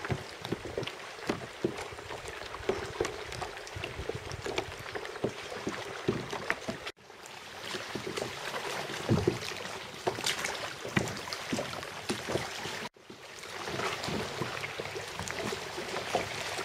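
Kayak paddle strokes on calm water: small irregular splashes and drips, with water lapping at the hull. The sound cuts out abruptly twice, about seven and thirteen seconds in, and fades back in each time.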